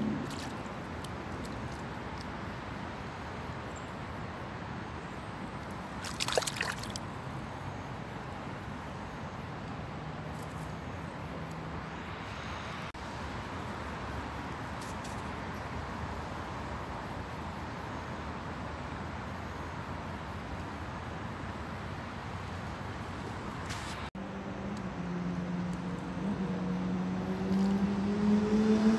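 Hooked crucian carp splashing at the water's surface, with one sharp splash about six seconds in, over a steady wash of outdoor noise. A low engine-like hum comes in near the end.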